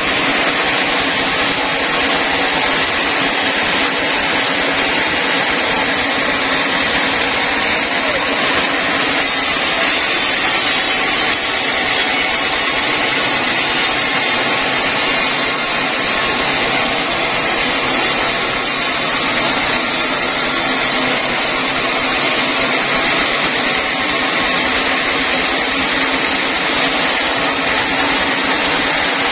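Sawmill band saw running and ripping lengthwise through a large squared timber: a steady, unbroken machine noise.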